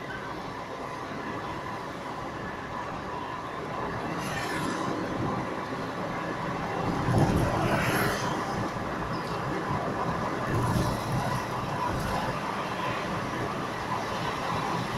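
Car driving, heard from inside the cabin: steady engine and tyre-on-road noise, briefly louder about halfway through.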